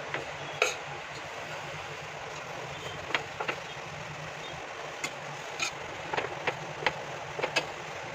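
A metal spoon stirring jaggery into coconut in a pan on the stove, clinking and scraping against the pan in short, irregular knocks, the loudest about half a second in. Under it runs a steady hiss with a low hum.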